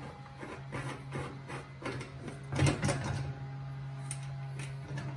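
Bolts being fitted by hand into a sheet-steel bandsaw table: scattered metal clicks and knocks, one louder knock about halfway through, over a steady low background hum.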